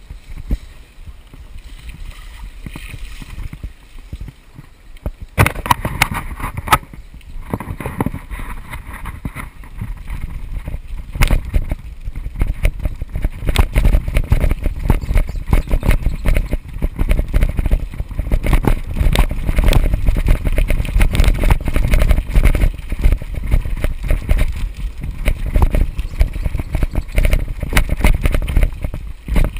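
A mountain bike rattling and jolting over a rough dirt trail, with wind rumbling on the bike-mounted camera's microphone. It turns much louder with dense knocks about five seconds in.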